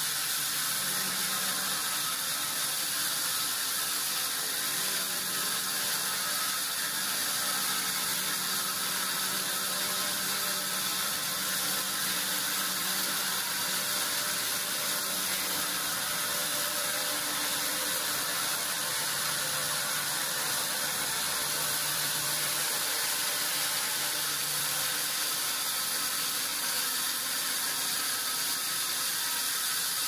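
Band sawmill running steadily, its blade sawing through a large mahogany log: a continuous hiss with a faint high whine.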